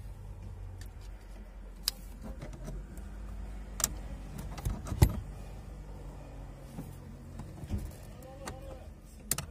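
Scattered clicks and knocks from hands working at a car's bare steering column and under-dash wiring, the loudest knock about halfway through, over a low steady hum.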